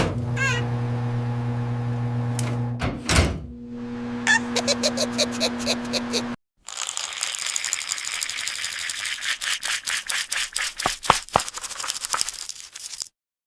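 Cartoon kitchen sound effects: a steady electric hum with a couple of knocks and a quick run of ticks, then after a brief break a hissing clatter of rapid clicks.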